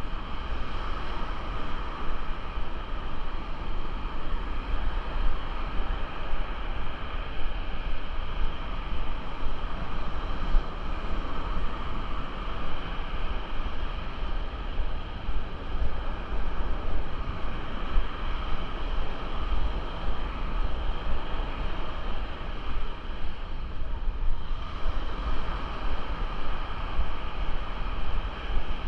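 Wind buffeting the microphone, a steady low rumble that flutters with the gusts, over the wash of ocean surf on the beach. The wind eases briefly near the end.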